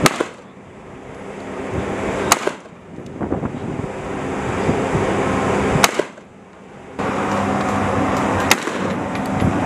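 Four single rifle shots, each short and sharp, spaced about two and a half to three and a half seconds apart, from rifles fired one round at a time on a prone firing line.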